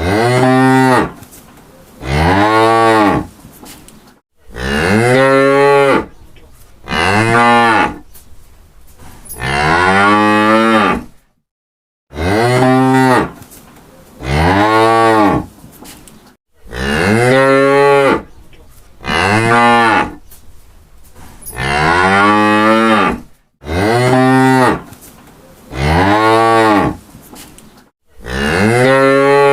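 Cattle mooing over and over: about thirteen loud moos, each one to two seconds long, rising in pitch and then falling away, with short pauses between them.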